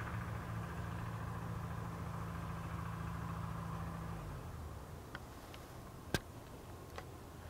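An engine running steadily, a low hum that stops about four seconds in. Then a few light clicks and one sharp click about six seconds in.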